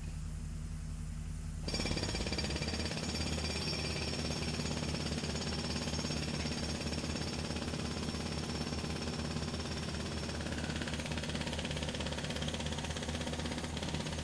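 Sound effect of a machine: a low steady hum, then about two seconds in a louder, continuous mechanical rattle starts and keeps going.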